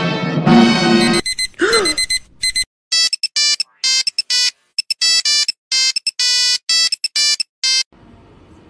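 Orchestral music cuts off about a second in. A run of bright electronic beeps follows in an uneven, tune-like rhythm, with a short sliding tone early on, and the beeps stop near the end, leaving faint room noise.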